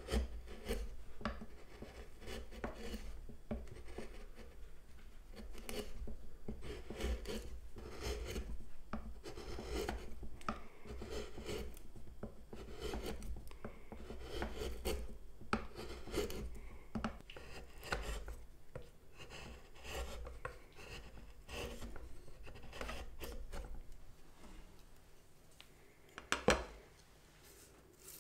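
Hand-pushed carving gouge slicing curled shavings out of a softwood board: a run of short, irregular cutting strokes. The cutting thins out near the end, with one sharp knock shortly before it stops.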